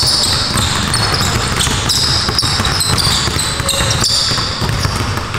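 Several basketballs dribbled at once in a dense, overlapping patter of bounces, with short high-pitched squeaks coming and going on top.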